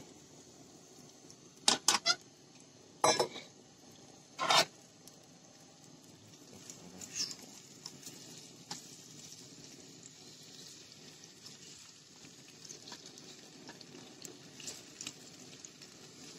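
Raw potato pieces tipped from a metal bowl into a hot frying pan with vegetable oil: a few loud clatters and knocks in the first five seconds, then a faint, steady sizzle of frying with occasional light taps and scrapes of a metal spatula.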